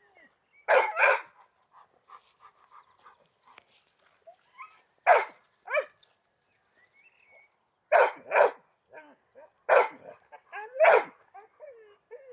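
Dog barking: about eight loud, sharp barks in short bursts, several in quick pairs, with fainter yips in between.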